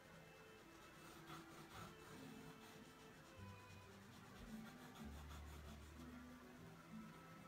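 Faint scratching and rubbing of a stick burnishing a paper rub-on transfer onto a wooden vanity top; very quiet overall.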